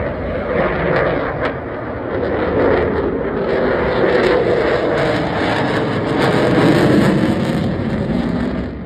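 Eurofighter Typhoon fighter jet flying its display, the roar of its two Eurojet EJ200 turbofan engines growing louder and loudest a second or two before the end.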